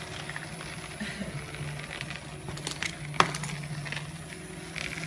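Small plastic toy pieces clicking and clattering against a plastic playset as they are handled, with one sharp click about three seconds in, over a steady low hum.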